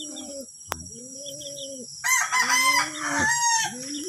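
Chickens clucking in a run of repeated low calls, each under a second long. A louder, higher call comes in from about two seconds in and lasts until near the end. A sharp click comes just before one second.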